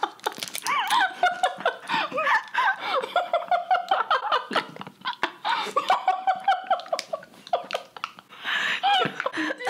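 Women laughing and giggling in bursts, with a few sharp clicks among the laughter.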